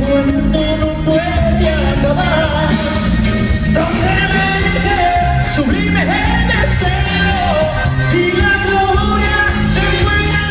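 A live norteño band with saxophone playing a ballad: a held melody line over bass and drums with a steady beat.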